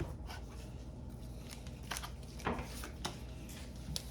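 Light, scattered clicks and rustles of hands handling trading cards and their packaging, over a low steady room hum.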